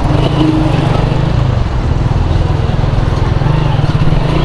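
Honda CG125 motorcycle's single-cylinder four-stroke engine running steadily at riding speed, mixed with the noise of surrounding traffic.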